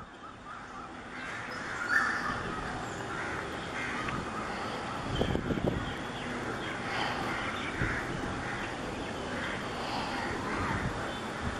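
Crows cawing again and again over a steady background rumble.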